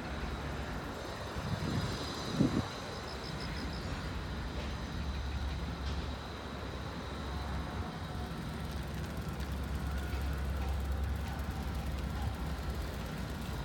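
Steady low rumble of wind and road noise while riding a bicycle along a roadside bike path, with a couple of knocks about two seconds in.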